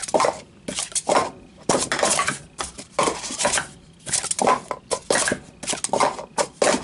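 YJ plastic speed-stacking cups being stacked up and down on a table mat, clacking and sliding against each other in a quick, irregular series of about a dozen clatters.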